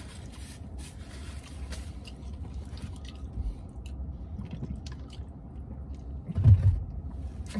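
Close-up mouth sounds of eating and drinking: chewing, then gulps from a plastic shaker bottle. Near the end comes one short, loud, low vocal sound.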